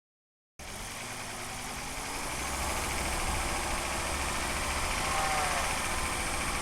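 Driveline and engine noise of a 2005 Volvo XC90 2.5T AWD, picked up by a microphone under the car by the transfer case, as it pulls away from a stop and accelerates. The sound starts abruptly about half a second in and builds steadily, with a short whine bending in pitch around five seconds in. The owner suspects gear whine from the transfer case or bevel gear, which always comes in near 2,000 rpm as second gear engages.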